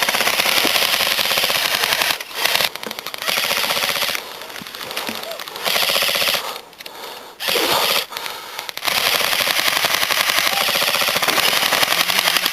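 Airsoft guns firing on full auto: long runs of rapid fire with a few short breaks.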